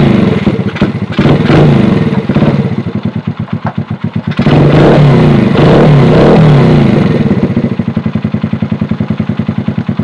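1982 Honda XL100S air-cooled single-cylinder four-stroke engine, just started and revved up and down in two loud stretches with a dip between. Near the end it settles to a steadier, pulsing lower idle.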